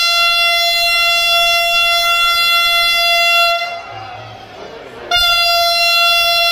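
Horn of an approaching Vande Bharat Express train: one long, steady blast on a single note that stops about three and a half seconds in. After a gap of about a second and a half, a second, shorter blast follows.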